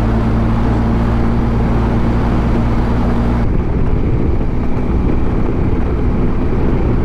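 Benelli TRK 502X motorcycle's parallel-twin engine running steadily at cruising speed, heard with heavy wind and road noise at a bike-mounted camera. About three and a half seconds in, the engine note and wind noise change abruptly.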